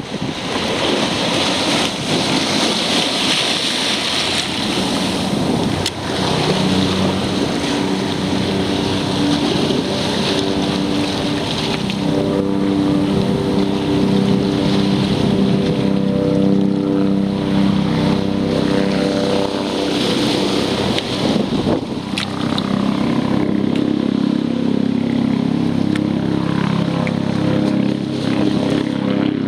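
Wind on the microphone and choppy water around a kayak, then from about six seconds in a helicopter's steady, pitched engine and rotor hum comes in over the water noise and stays, growing as it approaches.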